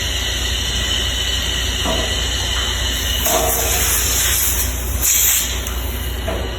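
Compressed air hissing in two short bursts, the first about halfway through and a shorter one near the end, over a steady low hum and a constant hiss.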